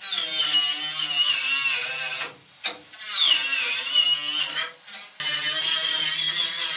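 Handheld electric power tool working the steel body shell, running in three stretches with short stops between. Its motor whine sags in pitch as the tool bites into the metal, then picks back up.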